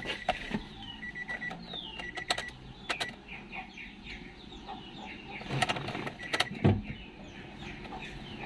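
Small birds chirping over and over, with a beep that sounds on and off in short runs and several clicks and knocks, the loudest of them between about five and a half and seven seconds in.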